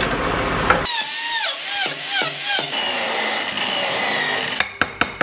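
A bandsaw running and cutting through a thick block of wood. About a second in, it changes to a lathe driven by an electric drill motor, with a chisel cutting a spinning wooden wheel and giving repeated falling squeals. A few sharp clicks come near the end.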